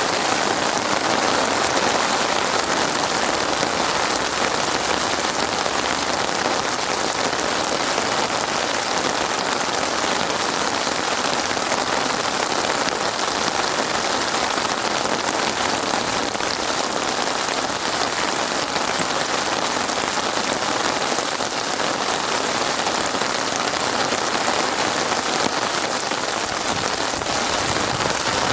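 Steady rain falling on a surface, a dense, even patter.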